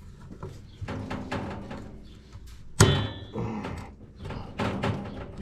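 Scattered clicks and knocks of metal tools and drum-brake hardware being handled, with one loud metallic clank about three seconds in that rings briefly.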